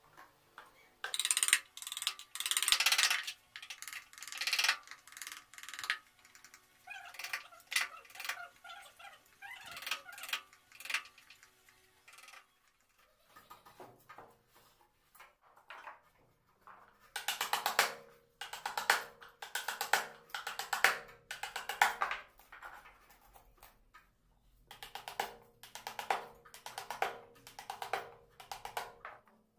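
Mallet striking a hand carving chisel as it cuts into a wooden panel: runs of quick, sharp knocks with short pauses between them, and a longer lull about halfway through.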